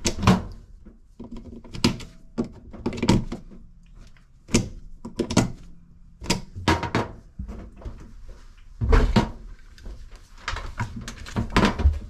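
About ten sharp clicks and knocks, irregularly spaced, from testing a newly installed GFCI outlet: a plug-in tester is pushed into and pulled from the receptacle and the outlet is handled with a gloved hand.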